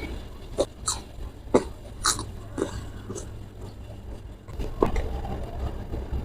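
Close-up eating sounds of someone chewing jengkol (dogfruit) with sambal: several irregular wet mouth smacks and crunches.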